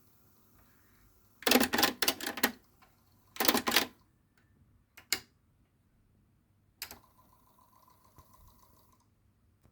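Mechanical clicking and clattering of a Sony TC-WE435 cassette deck's transport: two short bursts of rapid clicks, then a few single clicks. After a click about seven seconds in, a faint steady hum for about two seconds, then it stops.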